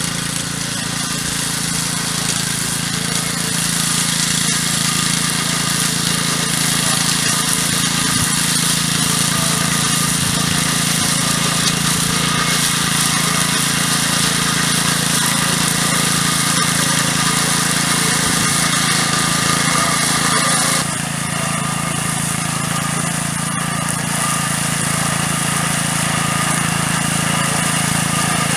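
Small petrol engine of a VARI DSK-316 two-wheel tractor running steadily under load, driving a Samson drum mower through tall grass. The sound is unbroken, with a slight drop in its hiss about two-thirds of the way through.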